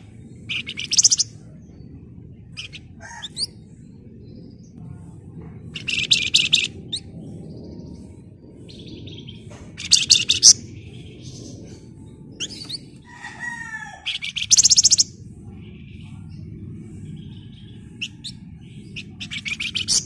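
Caged Sunda bush warbler ('flamboyan') giving about five short bursts of a fast, dense, drill-like rattling call, roughly every four seconds, with a few sliding notes near the middle.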